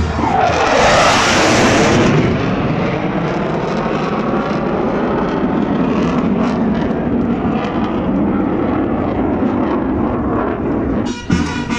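Jet roar of two fighter jets, one a Eurofighter Typhoon, passing overhead: loudest in the first two seconds with a falling pitch, then a steady rumble that eases as they fly away.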